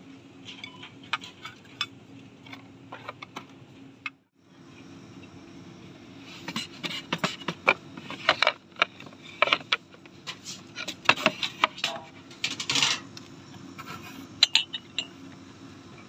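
Shop merchandise being handled: a string of light clicks, taps, rubs and small clinks as packaged cutlery, a wooden board and crockery are picked up and moved, over a steady low hum. The sound drops out briefly about four seconds in.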